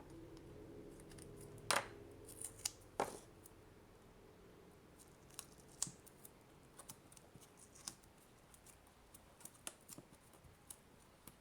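Hands working electrical tape: three sharp clicks or snips in the first few seconds, then light scattered ticks and rustling.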